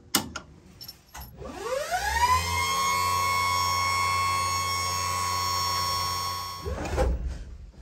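A few clicks, then an electric motor whine that rises in pitch over about a second. It holds one steady pitch for about four seconds, then dies away near the end.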